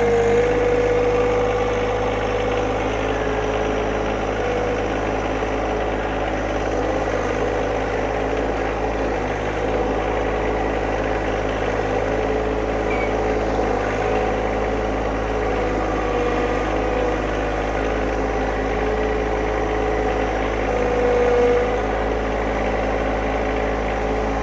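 Engine running steadily at an even speed, with a steady whine that drifts slightly in pitch, while the machine loads a log onto a sawmill bed.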